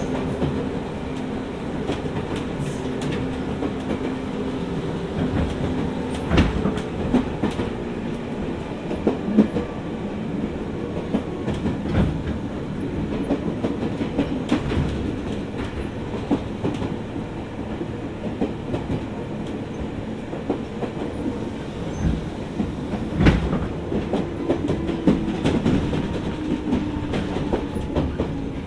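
Jomo Electric Railway 700 series electric train (ex-Keio 3000 series) running between stations: a steady rumble of wheels on rail with a faint steady hum, broken by irregular clicks and knocks as the wheels cross rail joints.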